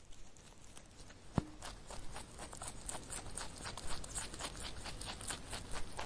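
A rabbit munching dry hay: rapid crisp crunching clicks, several a second, building up after the first second, with one sharper click about a second and a half in.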